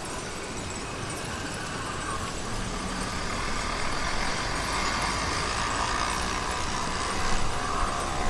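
A motorized bicycle's YD100 two-stroke engine running while the bike is ridden, a steady drone that gradually gets louder.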